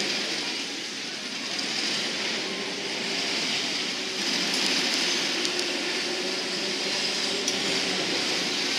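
Hopkins looping steel roller coaster train running along its tubular track: a steady rumble of wheels on steel rail with a hiss above it.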